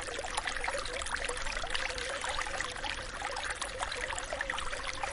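Water sound effect: a steady stream of running, trickling water, full of tiny splashes.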